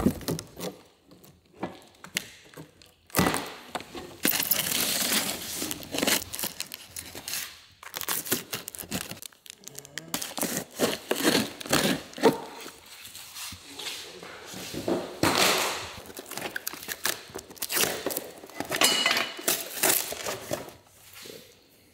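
Cardboard shipping boxes being torn open and their packing crinkled and pulled apart, in irregular rustling and ripping stretches with scattered knocks as parts are handled.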